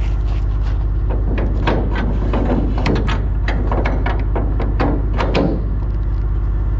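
A semi truck's diesel engine idling steadily, with a run of clicks, knocks and scrapes over it from about a second in until near the end as someone steps on gravel and handles the metal front corner of a stock trailer.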